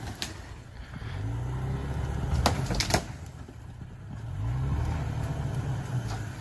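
Toyota Tacoma pickup engine revving up in two long surges while the truck works its knobby tyres through deep snow, trying to get unstuck. A couple of sharp clacks come about two and a half to three seconds in.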